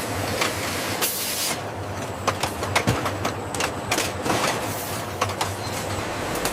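Factory processing machinery running: a steady low hum with irregular clicks and clattering knocks, and a short hiss about a second in.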